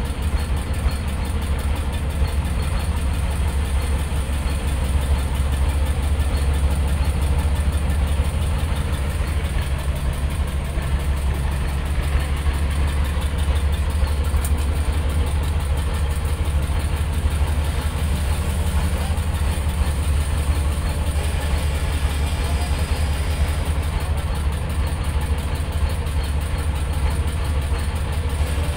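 Boat engine idling steadily, a low, even rumble.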